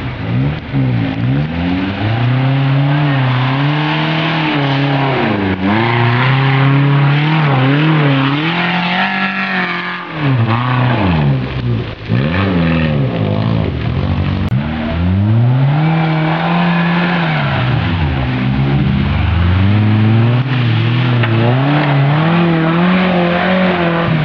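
Off-road vehicle's engine revving hard and repeatedly, its pitch climbing and falling again and again, with a brief drop-off about ten seconds in.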